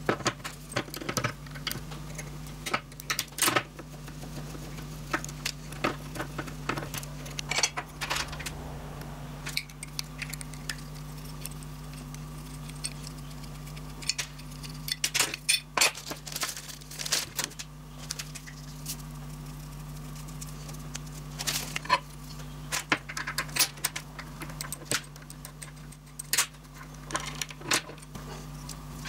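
Small metal machine parts, bolts and hand tools clinking and rattling as a small grinding machine is taken apart on a steel workbench. The sound comes as irregular clusters of light clicks and clinks over a steady low hum.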